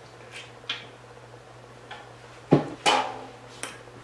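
Drinking soda from a can, with faint sips and swallowing clicks. In the second half come a few louder, sudden sounds: a knock as the can is set down, and breathy mouth sounds.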